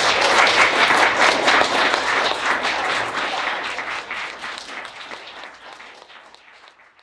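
Audience applauding, loud at first and dying away over the last few seconds.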